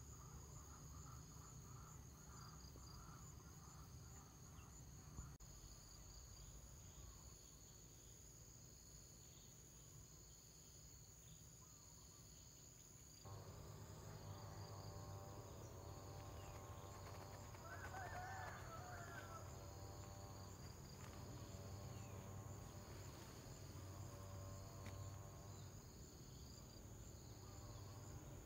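Faint outdoor insect chorus: a steady high trill with a regularly repeating chirp. About halfway through, a lower pulsing insect buzz joins in and the chorus gets a little louder, with a brief higher call about two-thirds of the way through.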